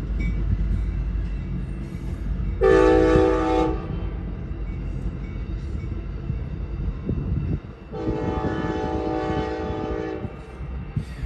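Nathan K5LA horn on an Amtrak California F59PHI locomotive sounding two blasts, a short one about three seconds in and a longer one near the end, over the low rumble of the passing train.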